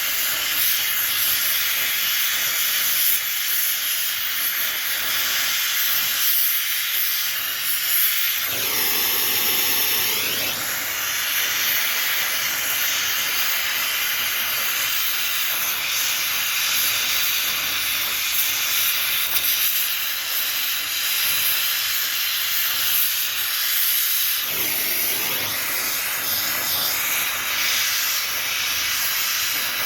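Gas torch hissing steadily while lead battery plate lugs are welded together, with the rush turning fuller and lower about eight seconds in and again near twenty-five seconds.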